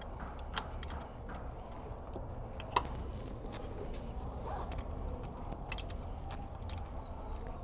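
A few scattered light metallic clicks and taps from a wrench tightening the timing-belt tensioner bolt, over a low steady hum.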